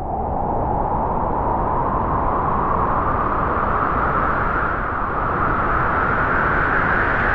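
Wind blowing in a long, continuous gust, a loud rushing noise whose pitch rises slowly.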